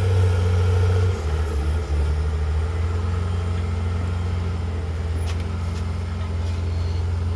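Heavy diesel engine of earthmoving construction machinery running steadily under work, its note dropping slightly about a second in.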